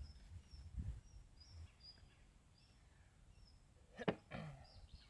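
Faint outdoor background with a small bird giving short, high chirps several times. There is a low thump about a second in and a single sharp knock about four seconds in.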